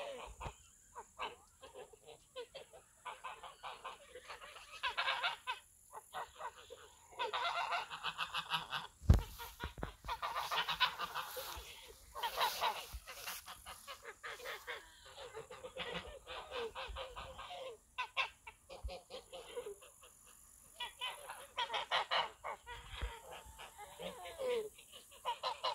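A flock of white domestic geese honking, many calls overlapping in clusters with short gaps between. A single sharp thump sounds about nine seconds in.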